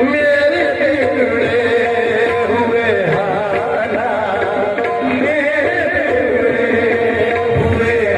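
Qawwali music: a wavering sung melody over tabla.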